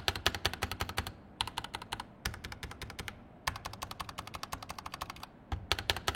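Fast typing on a Pressplay Rover 84v2 tray-mount mechanical keyboard: rapid key clacks broken by a few short pauses.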